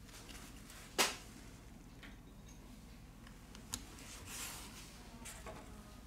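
Handling sounds of a phone repair: a sharp click about a second in, a smaller click near the middle and soft rustling as gloved hands work the phone's back cover and place a suction cup and tools, over a faint steady hum.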